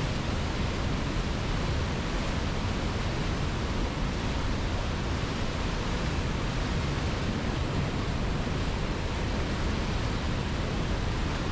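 River water flowing, a steady unbroken rushing.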